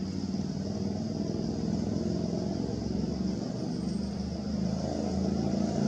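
Steady low engine hum, slowly growing louder, with a steady high buzz above it.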